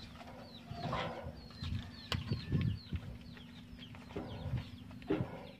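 Small birds chirping in many short, falling notes, over a steady low hum. Dull knocks of logs being set onto a wooden trailer come through, with one sharp knock about two seconds in.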